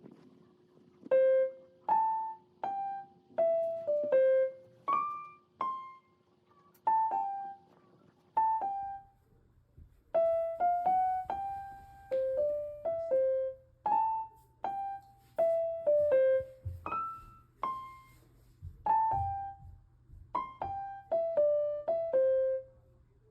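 Background music: a simple, slow melody played one note at a time on a piano or electric piano, each note struck and left to fade.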